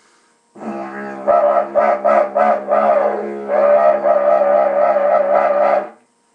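Didgeridoo drone with a kookaburra call voiced over it by squeezing the vocal cords: a run of quick pulsing whoops, then a wavering held warble, ending abruptly.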